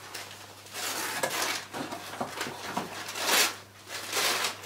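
Wrapping paper on a present being torn and rustled by hand, in several short rips and crinkles.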